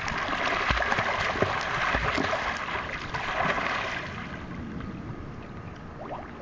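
Swimming-pool water splashing and sloshing close by as swimmers move through it, dying down after about four seconds.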